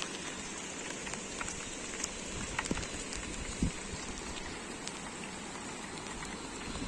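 Steady hiss of water, with a few faint ticks and a light knock.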